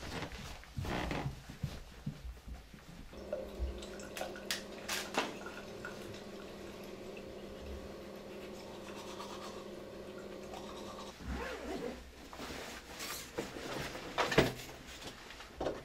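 Rustling movement, then an electric toothbrush buzzing steadily for about eight seconds before stopping abruptly, with scrubbing over the hum. Shuffling and a sharp thump follow near the end.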